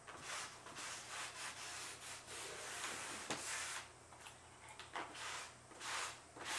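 A wet rag rubbing in repeated short strokes over old washi paper on a wooden shoji screen, soaking it so the old glue loosens. There is a short knock about three seconds in.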